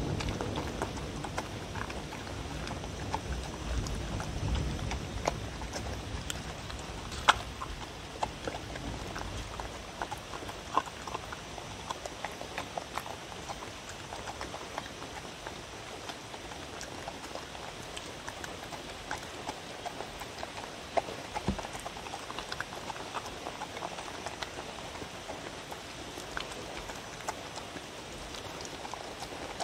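A dog eating from a wooden bowl: wet chewing and smacking with many quick, irregular clicks as it crunches chopped carrot, bell pepper, egg and meat and its muzzle knocks the bowl. A steady hiss lies under it, and a low rumble fades out over the first third.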